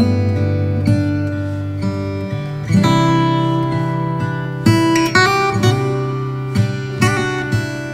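Background music played on acoustic guitar, a new chord sounding every second or two.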